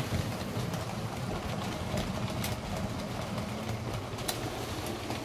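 H0-scale model steam locomotive (DB Class 54) running along the track: a steady low rumble of wheels and motor, with scattered clicks as the wheels pass rail joints.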